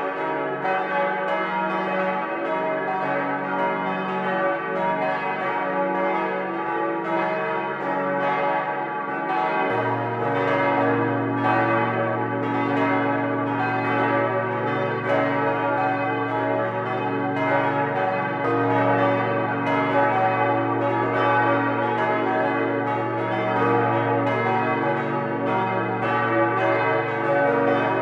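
Several swinging church bells of the Protestant town church's large peal ringing together in an overlapping, continuous clangour. About ten seconds in, a deeper bell joins and keeps sounding beneath the others.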